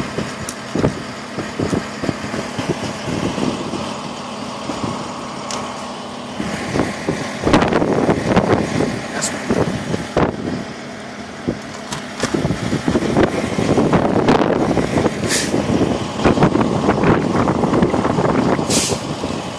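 Strong gusty wind buffeting the microphone through an open truck-cab window, swelling in louder gusts from about a third of the way in, over a steady low hum of an idling truck engine. Two short hisses come near the end.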